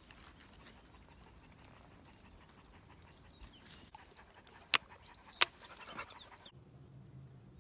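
A dog panting, with two sharp clicks about half a second apart in the middle. Near the end the sound cuts to a low steady hum.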